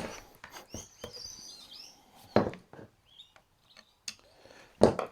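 Scattered light clicks and knocks of hand tools being handled and set down, the sharpest about halfway through, with faint high chirping in the background early on.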